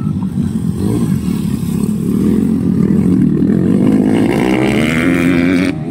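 Several dirt bike engines revving hard as the bikes race past on a dirt track, the sound swelling and rising in pitch as one accelerates in the second half, then cutting off suddenly near the end.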